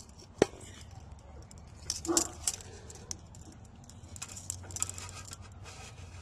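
Handling noise as a soda can and an airsoft rifle are held and lined up against each other: a sharp click about half a second in, then scattered soft clicks and rustles around two seconds and again four to five seconds in.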